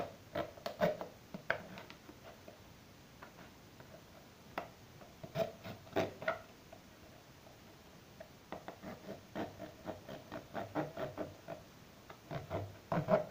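A blade sawing and scraping at the lid of a metal tin can to cut an opening, in short rasping strokes that come in three irregular runs, the longest near the end.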